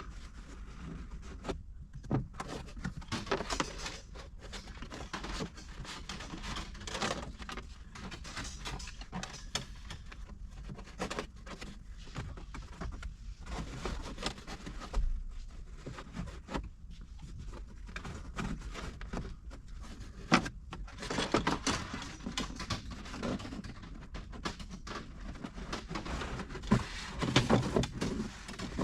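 Irregular rustling, scraping and small knocks of a fiberglass fish rod being worked back and forth along the edge of a car headliner, the rod rubbing against the headliner fabric and plastic trim. A few sharper clicks stand out, the loudest near the end.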